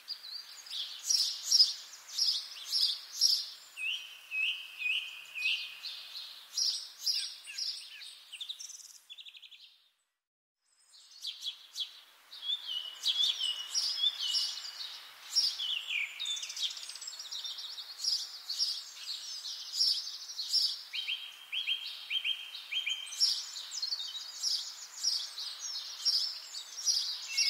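Songbirds singing in a dense spring chorus, many quick chirps and trills overlapping. It breaks off for about a second about a third of the way in, then carries on.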